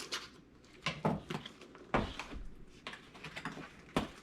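Comic book packaging being handled: a series of light knocks, taps and rustles of cardboard and bagged comics, with the sharpest knock near the end.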